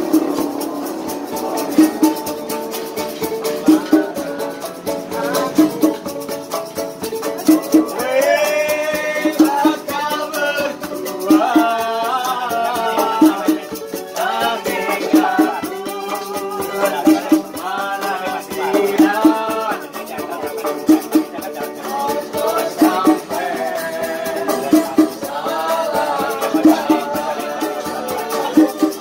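Street musicians playing live: strummed strings over a steady percussion beat, with a voice singing from about eight seconds in.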